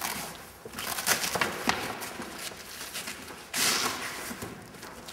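Fabric of a flexwing microlight's nose cap rustling and rubbing against the wing's sailcloth as hands pull it over the wing nose, with scattered small clicks and one louder rasp about three and a half seconds in.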